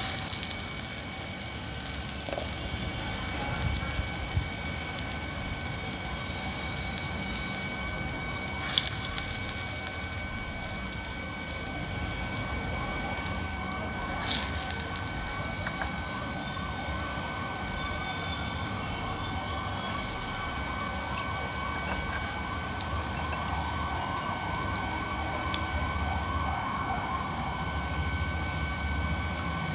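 Urad dal vadas deep-frying in hot oil in a kadai: a steady sizzle, with sharper surges of sizzling about nine, fourteen and twenty seconds in as more batter goes into the oil.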